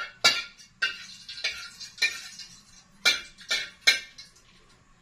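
A metal ladle clanking and scraping against a wok while stirring food, with about seven sharp, ringing clanks spread across the few seconds.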